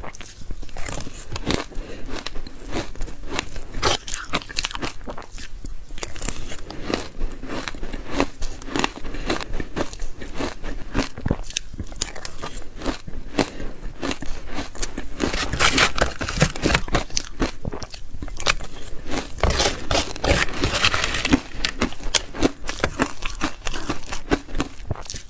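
Soft shaved ice coated in powder being bitten and chewed close to a microphone: a dense, irregular run of crisp crunches and crackles, busiest about two-thirds of the way through.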